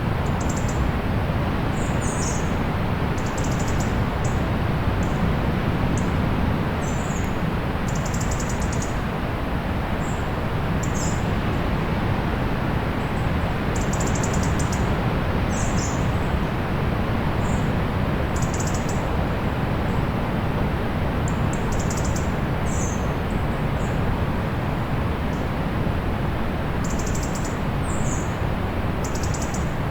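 Steady rush of distant sea surf, heaviest in the low end, with short, high bird chirps coming every second or two over it.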